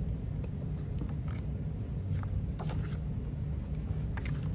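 Soft rustles and clicks of paper book pages being handled, a few separate times, over a steady low hum.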